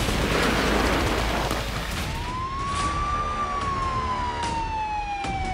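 A loud rushing noise for about two seconds, then a fire engine's siren wailing: one tone that rises for about a second and then falls slowly.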